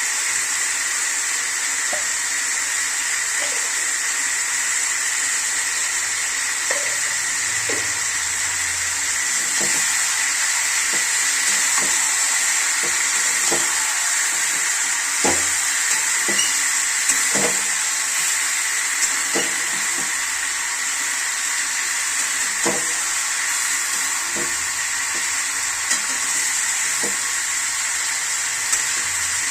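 Chicken and spices frying in a pan, a steady sizzle, with a spoon or spatula stirring and knocking against the pan every second or two.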